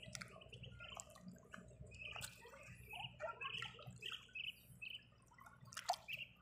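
Faint water dripping and lightly splashing around a wire-mesh fish keeper basket being handled in shallow water, with scattered small clicks from the wire.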